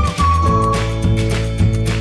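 Background music: a melody over a steady bass line and beat.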